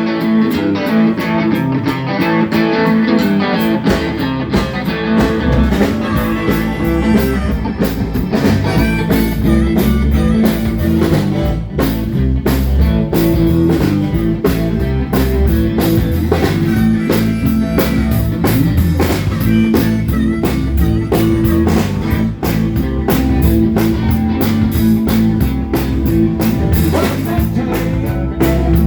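Live blues band playing an instrumental opening: electric guitar leads on its own, then drums and bass come in about four seconds in and the band plays on together.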